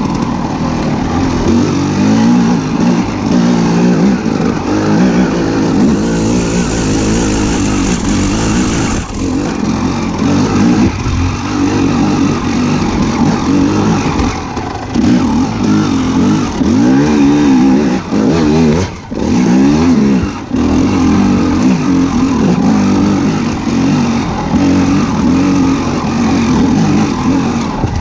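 Engine running and revving, its pitch rising and falling again and again, with a short burst of hiss a few seconds in.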